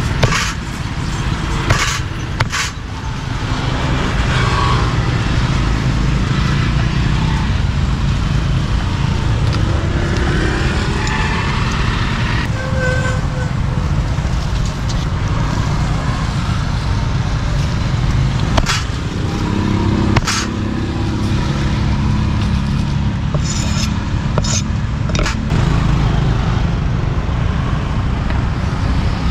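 Steady rumble of passing street traffic and motor vehicles, with a few sharp knocks scattered through it.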